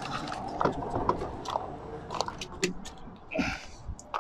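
Hard plastic clicks, knocks and scraping as a truck's plastic coolant expansion tank and its hose fittings are handled and worked into place, with a short rustling scrape about three and a half seconds in.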